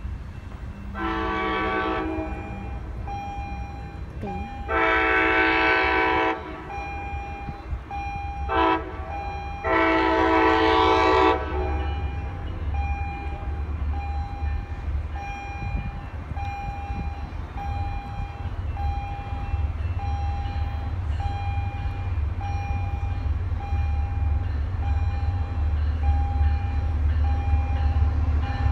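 MBTA commuter train's horn sounding the grade-crossing signal: two long blasts, a short one and a long one, in the first dozen seconds. After that a bell rings about once a second over the low rumble of the approaching train, which grows toward the end.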